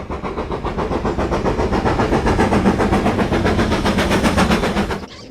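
Steam train running at speed: a fast, even, rhythmic chugging that builds in loudness, then cuts off suddenly near the end.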